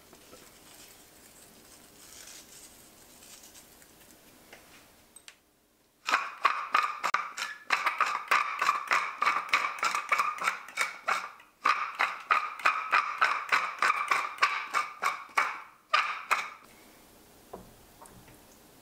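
Wooden pepper mill grinding black pepper: a fast run of gritty clicks, about six seconds in, that goes on for about ten seconds in three stretches with brief pauses between them.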